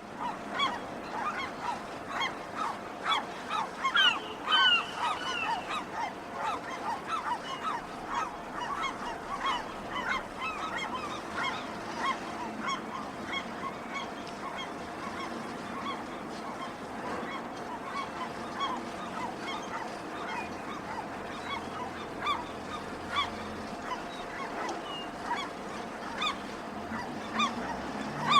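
Many gulls calling at once, short overlapping cries repeated over and over, busiest in the first third, over a steady low hum.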